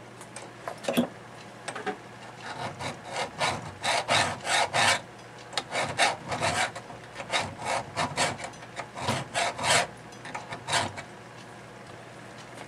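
Flat hand file rasping back and forth across thin stainless steel sheet held in a vise, about two to three strokes a second, starting about two seconds in. The file is taking down the raised dimple that a punch has pushed up, to open a hole through the steel.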